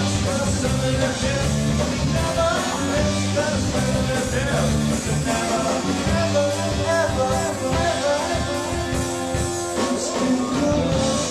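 A rock band playing a song, with a singer over guitar and a steady beat.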